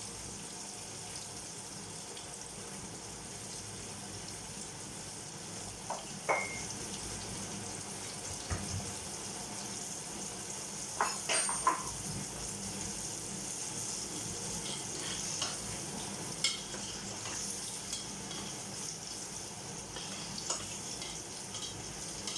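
Food sizzling in a frying pan with a steady hiss, broken by a few sharp clinks of a utensil against the pan.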